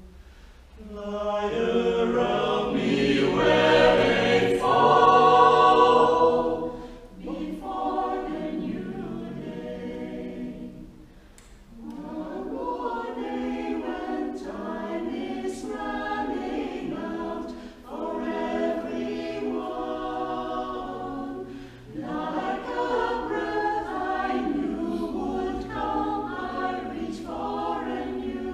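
Mixed vocal ensemble of men's and women's voices singing in harmony. The phrases are broken by short breaths, and it is loudest in the first few seconds.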